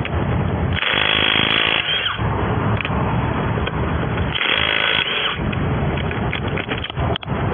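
Impact wrench running on lug nuts in two bursts of about a second each, over a steady background rumble, with a few clicks near the end.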